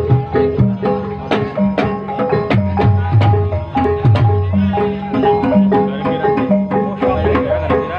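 Live Javanese gamelan playing ebeg accompaniment: hand-drum strokes over a running melody on ringing bronze kettle gongs and metallophones.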